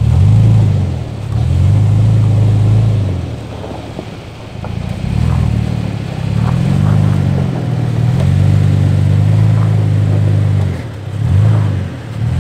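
Toyota Tacoma's engine pulling in repeated throttle surges as the truck crawls over rocks, its pitch rising and falling with each surge and easing off in short dips between them.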